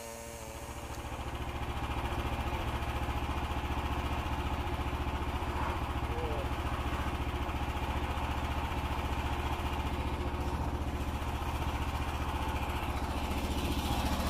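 Frontier OS27 portable bandsaw mill's small gasoline engine running steadily at idle, with an even, fine pulsing beat.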